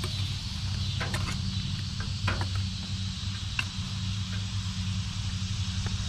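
A steady low mechanical hum, like a running motor, with a few light clicks and knocks scattered through it.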